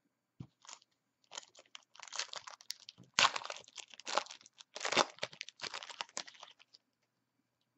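Foil trading-card pack wrapper crinkling and crackling as it is torn open and handled, in irregular bursts that are loudest in the middle.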